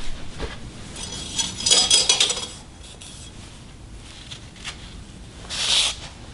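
Steel clinking and scraping against metal, with a brief ringing about two seconds in, then a short hissing rub near the end.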